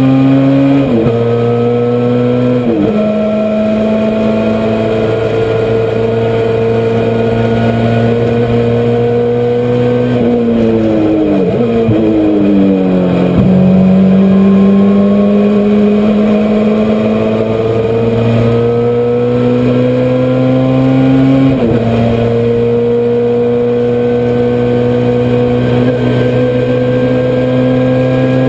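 Honda CRX race car's four-cylinder engine heard from inside the cockpit, pulling hard under full throttle. The pitch climbs with two quick upshifts near the start, then falls with braking and a string of downshifts around the middle. After that it climbs steadily again, with one more upshift later on.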